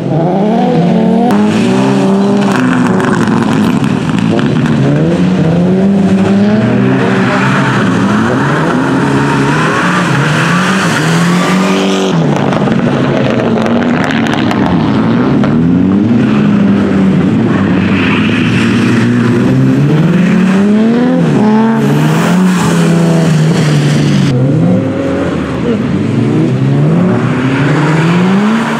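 Rally car engines revving hard and backing off over and over as the cars are driven through tight corners, the engine note climbing and dropping every second or two. The sound breaks off and changes abruptly about twelve seconds in and again at about twenty-four seconds.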